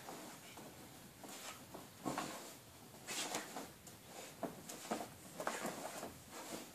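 A Spanish Water Dog digging and nosing into blankets and a sheet in a whelping box: irregular bursts of rustling and scratching fabric. This is a bitch's nesting behaviour as she prepares her bed for giving birth.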